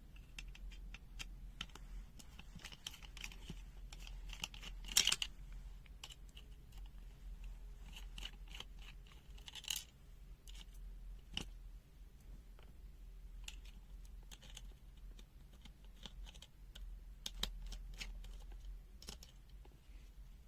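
Irregular small plastic clicks, taps and scratching as a handheld digital multimeter is taken apart by hand, with a sharper click about five seconds in and another near ten seconds.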